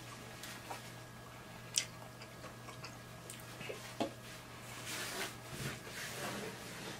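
Close-miked chewing of a mouthful of boiled corn on the cob, with a few sharp wet mouth clicks, clearest about two seconds and four seconds in, and busier chewing near the end, over a faint steady hum.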